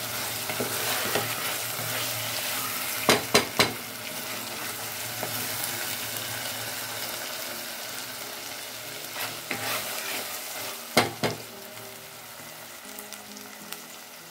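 Goat meat and ribs sizzling in spice paste in a metal pot, being browned until they change colour, with a steady frying hiss. A wooden spatula stirs and knocks against the pot three times about three seconds in, and a few more times around ten to eleven seconds in.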